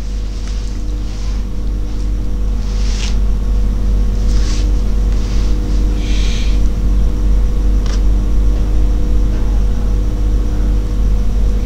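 Steady low rumble with a constant hum tone, and a few faint short soft sounds about every second or two.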